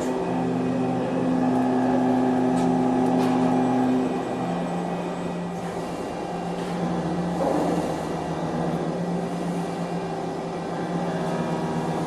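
CNC machine running with a steady hum of several held motor tones, which shift about four seconds in as its movement changes, with a few faint clicks.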